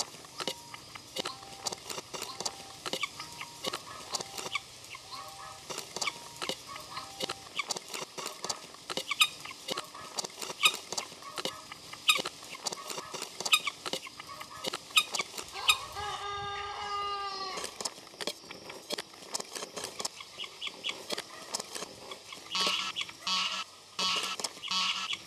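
Edited collage of chicken sounds: a dense run of short clicks and clucks throughout, with one rooster crow lasting about two seconds near the middle.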